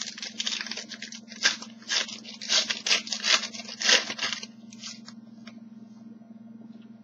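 Crinkling and tearing of a foil trading-card pack wrapper being opened and handled, in a run of sharp crackles that stops about four and a half seconds in.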